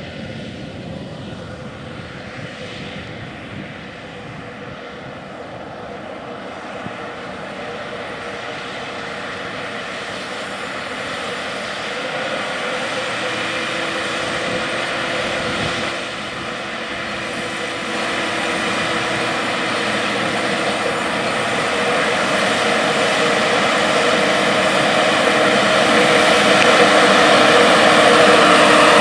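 Large four-wheel-drive farm tractor running steadily under load pulling an air seed drill, with a steady whine, growing louder as it approaches.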